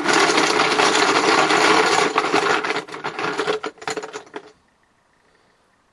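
Team draw chips being shaken and stirred together in a container: a dense rattling for about two and a half seconds that thins into scattered clicks and stops about four and a half seconds in.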